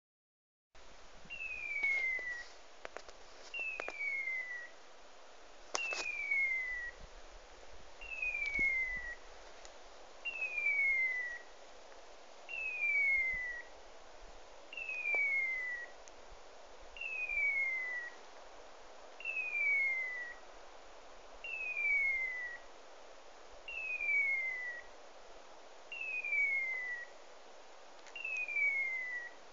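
A hunting dog's beeper collar sounding a falling electronic whistle, like a hawk's cry, about every two seconds with machine-even timing. Such a steady repeat is the signal a beeper gives when the dog stands still on point. A few faint snaps of brush come through between the calls.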